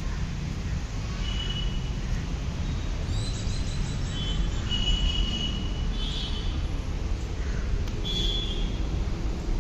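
Street ambience: a steady low traffic rumble with several short, high bird chirps and whistles over it, including a quick trill about three seconds in.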